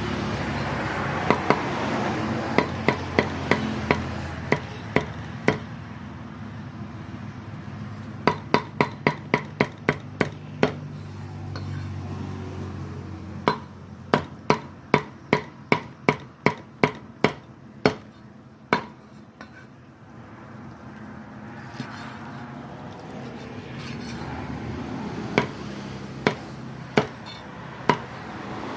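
A cleaver or heavy knife chopping on a wooden cutting board in runs of quick, even strokes, about four a second, with pauses between the runs. A steady rushing background noise runs underneath.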